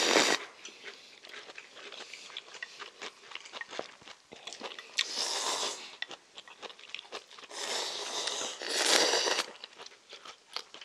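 People slurping thick Neoguri ramyeon noodles in noisy bursts: one just at the start, one about five seconds in, and two more close together near the end. Soft chewing and small clicks can be heard in between.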